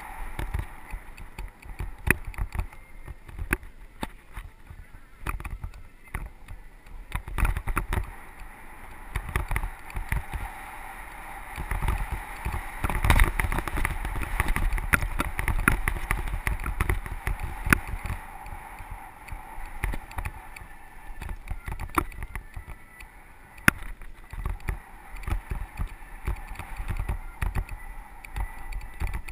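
Mountain bike riding fast down a dry dirt singletrack: a steady rumble of tyres on the dirt and wind over the action camera, with frequent clicks and knocks as the bike rattles over bumps. It gets louder for a few seconds around the middle.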